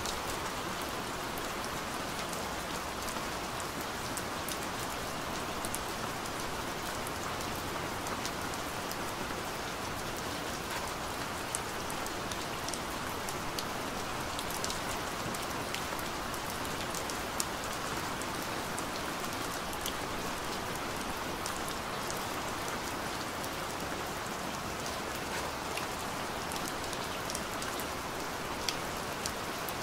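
Steady rain falling, an even hiss with scattered sharp drop ticks.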